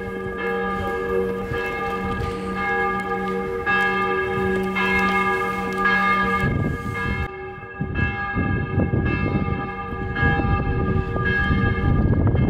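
Church bells pealing, with a stack of ringing tones renewed by a fresh stroke about twice a second. A low rumbling noise joins in about halfway through.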